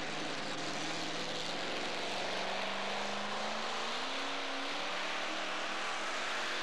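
A modified two-wheel-drive pulling truck's supercharged engine running hitched to the sled. About two seconds in its pitch rises steadily as it revs up to start the pull.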